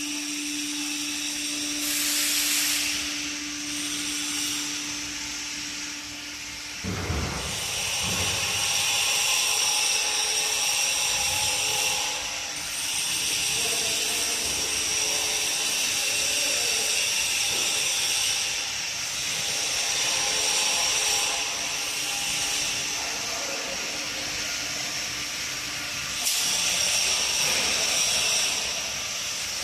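Double scissor-type parking lift running as its platform rises, a steady hissing mechanical noise with a hum that drops out about six seconds in. A short low thump comes about seven seconds in.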